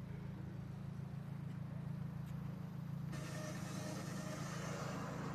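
Nissan S13 sitting with its engine running: a steady low hum, with more hiss joining it about three seconds in.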